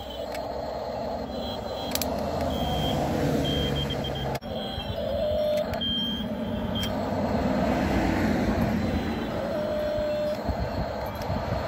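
Electric motors of a Double E 1/16-scale 17-channel RC excavator whining in short stop-start spurts as the boom, arm and bucket move, with cars passing on a road behind.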